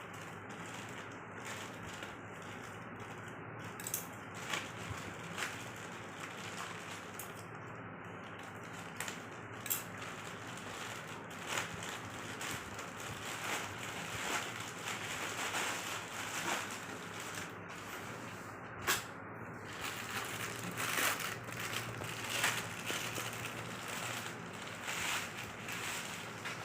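Packaging being handled and unwrapped, with irregular crinkling and crackling over a steady background hiss.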